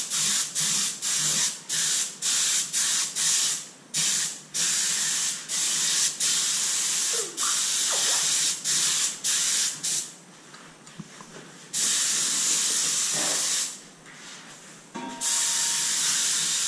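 Spray gun hissing in rapid short bursts, about three a second for the first several seconds, then in longer sprays broken by short pauses, as a coating is misted onto a surface.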